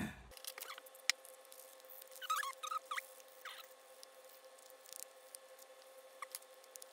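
Short squeaks, some rising and falling in pitch, about two to three seconds in, and scattered light clicks as small metal and plastic gas cap parts are rubbed and handled with nitrile-gloved hands, over a faint steady hum.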